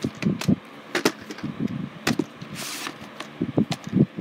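Plastic VHS tape cases being handled and set down: a series of sharp clacks and knocks about a second apart, with a short scraping slide midway.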